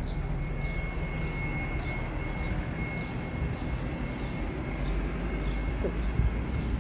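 Wind rumbling on the microphone, a steady low, gusting noise, with faint short high chirps over it.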